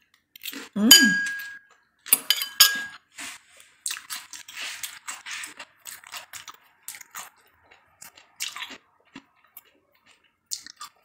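A metal fork clinks against a plate three times in the first three seconds, each strike ringing briefly. Then comes softer, crackly crunching as pieces of honeydew melon are picked up and chewed.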